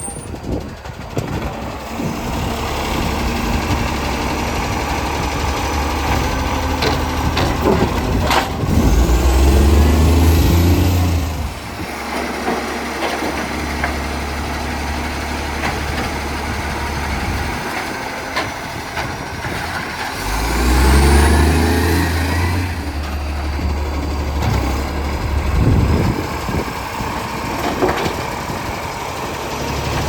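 Acco garbage truck's diesel engine running with a loud roar from an exhaust leak. It revs up twice, about ten and about twenty-one seconds in, for two or three seconds each.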